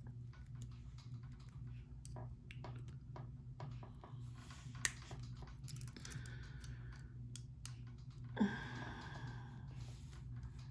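Small, irregular metallic clicks and ticks from handling a head pin's wire and a fine chain while a wrapped loop of jewelry wire is twisted and tucked, over a steady low hum. One brief, louder sound about eight seconds in.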